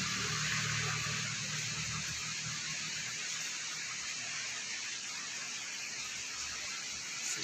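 Heavy rain falling, a steady, even hiss; a low hum underneath fades out after about two seconds.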